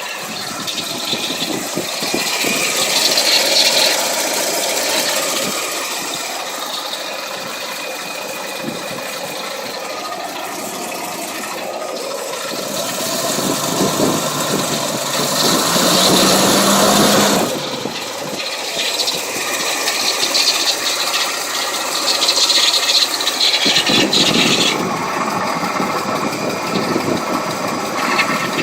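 Toyota FJ40 Land Cruiser running, with a weird noise amid the engine sound; it gets louder in stretches, with one louder spell cutting off suddenly about two-thirds of the way through.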